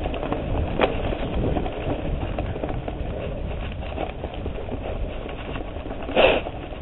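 Mountain bike rolling over a dirt trail: tyre noise and the bike rattling and clicking over bumps, with wind rumbling on the camera microphone. A brief louder rush comes about six seconds in.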